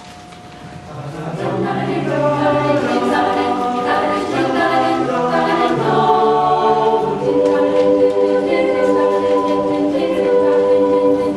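An a cappella vocal group singing a wordless intro: sustained, stacked chords over a low bass line, with no instruments. The voices come in about a second in, after a faint single held pitch.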